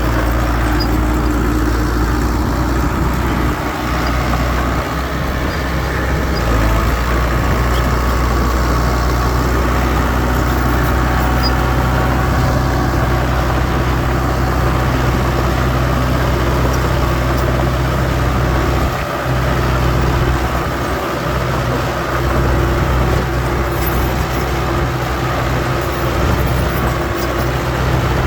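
Diesel engines of heavy earthmoving machinery running steadily with a constant low drone.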